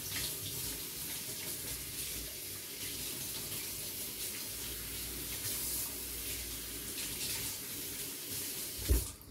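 Kitchen tap running steadily, its stream splashing over basil leaves held in a bowl in a stainless-steel sink as they are rinsed. A brief knock near the end.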